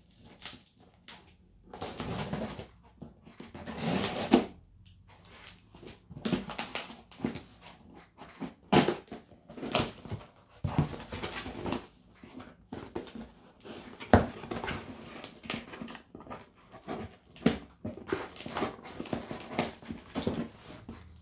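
Packing tape on a cardboard parcel being cut with scissors and ripped off, then the flaps pulled open and the box handled. An irregular run of tearing rasps, scrapes and sharp knocks.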